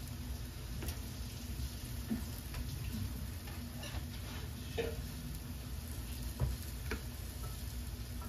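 Steaks sizzling on a hot cooking stone, with scattered light clicks and taps.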